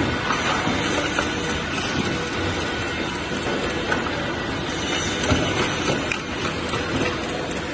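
LKCN-120C CNC rip saw machine running: a steady dense mechanical noise with a faint high steady whine and irregular clattering knocks.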